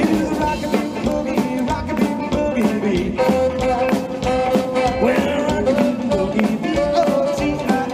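Live rock and roll band with upright double bass, electric guitars and drum kit, playing with a steady beat.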